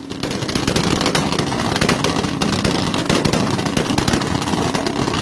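Mk3 Toyota Supra's exhaust banging and popping in a fast, continuous run of sharp cracks as the engine is held on a two-step launch limiter.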